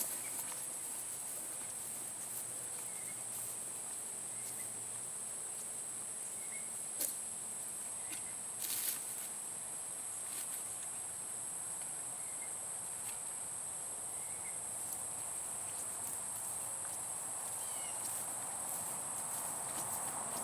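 Steady, high-pitched insect chorus, with a couple of faint clicks about halfway through.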